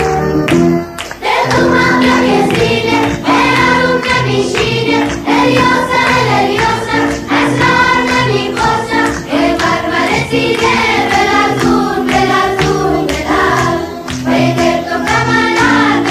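A Bandari-style dance song: a choir of children and women singing in unison over a steady beat, coming in about a second in after a brief pause in the music.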